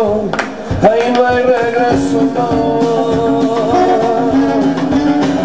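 Live trio music: a saxophone holds long wavering melody notes over strummed and plucked acoustic guitar and drums.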